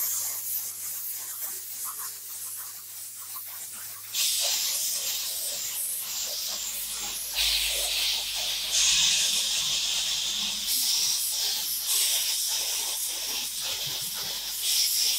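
Air spray gun hissing as it sprays silver paint onto aluminium motorcycle engine covers, in stretches that start and stop. Before the spraying begins about four seconds in, there is a quieter scratchy rubbing.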